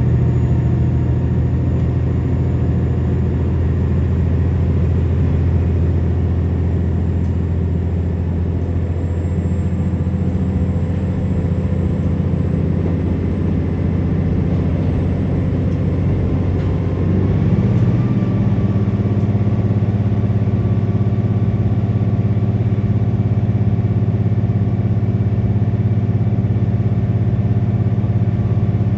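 KiHa 47 diesel railcar running, heard from inside the passenger cabin: a steady engine drone with a faint high whine that slowly rises. About 17 seconds in, the engine note changes abruptly and settles at a new steady pitch.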